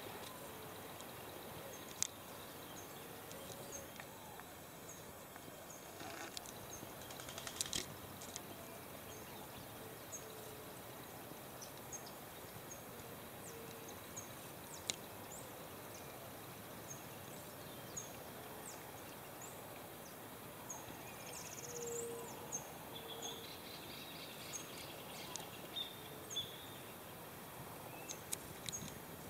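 Quiet outdoor ambience: a steady background hiss with a small bird chirping over and over in short high notes, about one a second. A few brief low calls and a handful of sharp clicks stand out here and there.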